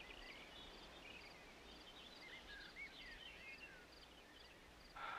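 Faint outdoor bird chirps and short whistles, with a light repeated ticking, over quiet background noise. A brief soft hiss comes just before the end.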